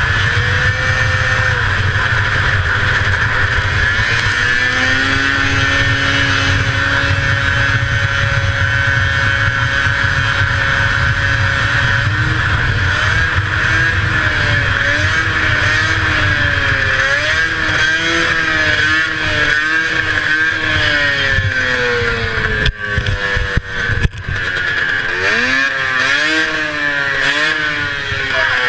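A 1981 Arctic Cat El Tigre 6000 snowmobile's 500cc two-stroke engine running hard under way. The engine holds a steady pitch at first, then rises and falls with the throttle from about halfway in. Near the end the sound drops out briefly twice, and the revs climb again.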